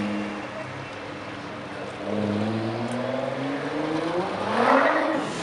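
Car engines passing at low speed: a steady engine note, then about two seconds in a car pulls away with its revs rising, growing louder toward the end as it passes close.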